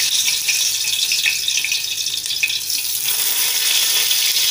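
Raw potato slices sizzling in hot oil in a preheated steel pot as they are laid in one at a time: a steady hiss with a few small crackles.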